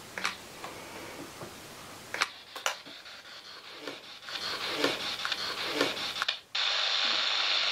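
Radio static from a spirit box: scattered clicks and choppy bursts of noise, then a loud steady hiss of static from about six and a half seconds in.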